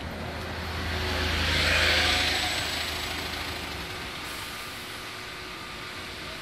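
A motor vehicle passes close by. Its engine and tyre noise rise to a peak about two seconds in and then fade, and the low engine hum ends just before four seconds.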